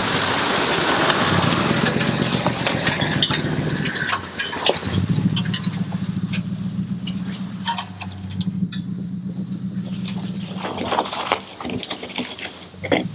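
A small engine running steadily, louder and rougher for the first few seconds, with many short clicks and crackles over it.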